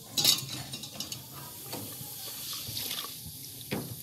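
Stainless-steel pots and tongs clinking as they are handled, with liquid sloshing inside. The sharpest clink comes just after the start and another near the end.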